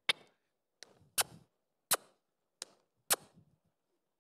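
A series of six sharp clicks, unevenly spaced about half a second to a second apart, each followed by a brief low sound.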